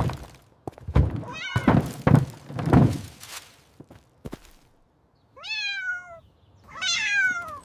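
A run of heavy thuds, then a cat meowing twice near the end, each meow falling in pitch.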